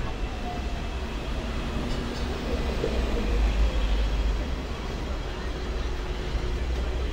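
Hong Kong double-decker electric tram running along its street rails, heard from on board: a steady low rumble with a faint whine.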